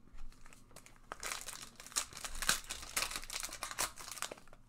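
A Tim Hortons hockey card pack's wrapper crinkling as it is picked up and torn open by hand, a dense run of fast crackles starting about a second in.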